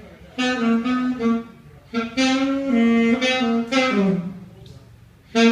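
Background music: a solo saxophone playing slow phrases of held notes, one phrase ending in a falling slide.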